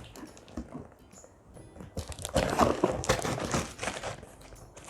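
A cardboard gift box and its packaging being opened by hand: irregular rustling, crinkling and light knocks, starting about two seconds in.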